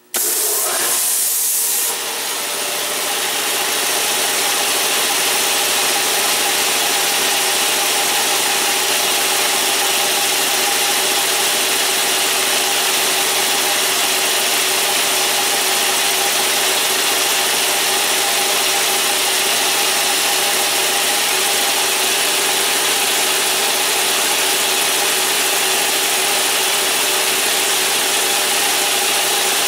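Quincy QR-25 model 325 belt-driven air compressor running steadily with its electric motor, a loud even mechanical drone with a hiss over the first couple of seconds.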